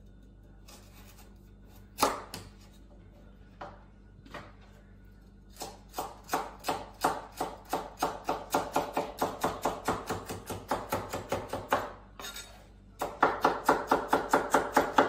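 Chef's knife slicing a carrot on a cutting board. A few separate knife strikes come first, then steady rapid chopping at about four strokes a second. After a short pause it resumes louder near the end.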